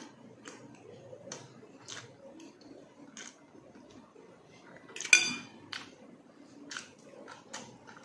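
Fork and fingers working at a plate of food: a string of soft clicks and taps, and about five seconds in one loud ringing clink of the metal fork against the dish.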